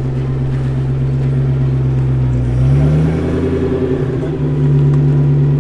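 Bugatti Type 57 SC Atalante's supercharged straight-eight engine running as the car pulls away at low speed. The revs rise about halfway through, then hold steady at the higher note.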